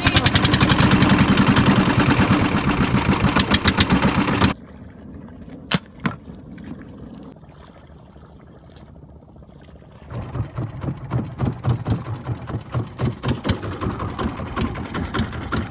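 A small boat's engine running with a rapid, even beat, then cutting off abruptly about four and a half seconds in. In the quiet that follows come a single sharp crack and a fainter knock just after. The engine-like beat comes back, quieter, about ten seconds in.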